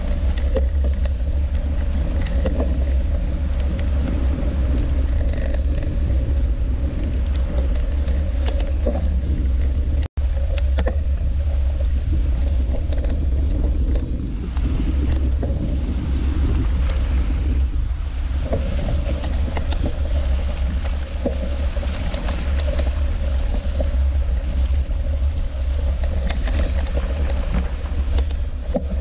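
Mountain bike riding over a wet, muddy gravel track, heard from a bike-mounted action camera: a steady low rumble of vibration and wind on the camera, with the tyres crackling and splashing over stones and puddles. The sound cuts out for an instant about ten seconds in.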